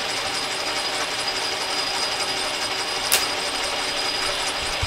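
Small metal lathe running with its gear train engaged and the carriage feeding along for a threading dry run, a steady rapid mechanical chatter. About three seconds in, a sharp click as the spring-loaded auto-retract threading tool trips and pulls back.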